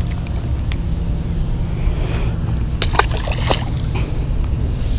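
Wind rumbling on the microphone. A short burst of splashing and ticks about three seconds in comes as a small largemouth bass is dropped back into the water.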